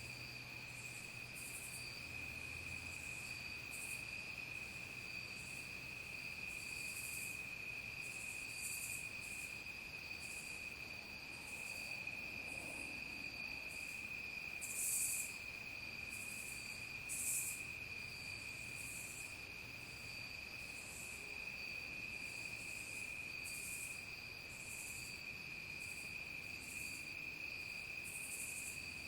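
Evening insect chorus of crickets: one high continuous trill holds steady, while shorter, higher chirps pulse irregularly about once a second over it. Two of the chirps, in the middle, stand out louder.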